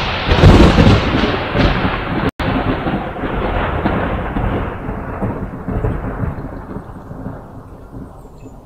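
Thunder: a loud thunderclap that rolls on as a long rumble, slowly fading and growing duller, with a split-second dropout about two seconds in.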